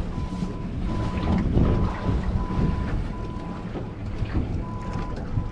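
Wind buffeting the microphone and water sloshing on a small boat's hull as it drifts at sea, with a high electronic beep that repeats about once a second.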